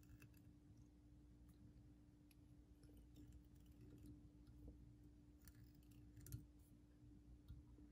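Near silence: a few faint clicks from hands working thread and a bobbin on a hook in a fly-tying vise, over a faint steady hum.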